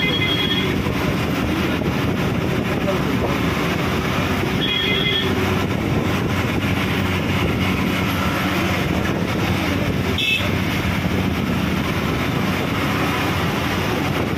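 Steady engine and road noise heard from inside a moving vehicle on a winding mountain road. A horn honks briefly at the start and again about five seconds in. There is a single sharp knock about ten seconds in.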